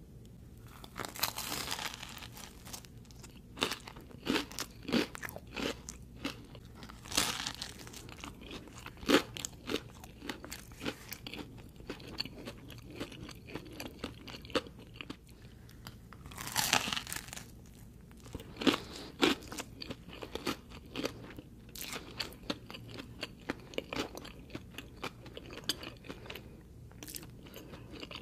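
Close-miked eating of a giant pepperoni pizza cone: a few loud crunchy bites into the baked crust, about a second in, around seven seconds and around sixteen seconds, with steady chewing full of small crunches in between.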